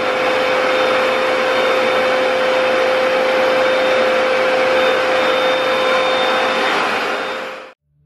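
Hoover PowerDash Pet carpet cleaner running steadily on a rug: a loud rush of suction with one steady tone through it, cutting off suddenly near the end.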